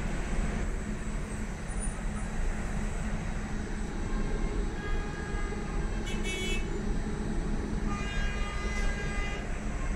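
Tram running along its track, heard from inside the car: a steady low rumble, with higher tones sounding briefly about six seconds in and again near the end.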